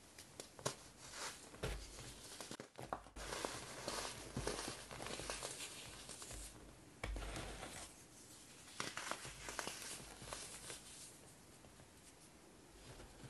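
Molded block of compressed baking soda being squeezed and crushed in the hands, crunching and crackling as it breaks apart. Then the crumbled powder pours and patters down as it is sifted through the fingers. It goes quieter near the end.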